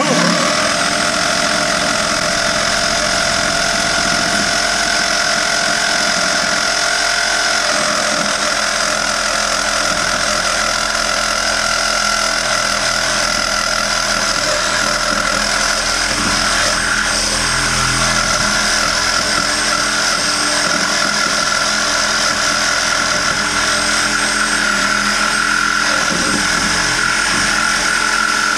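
A power tool starts suddenly and runs steadily, cutting through a cast iron sewer pipe, with a steady whine over the grinding noise of the cut.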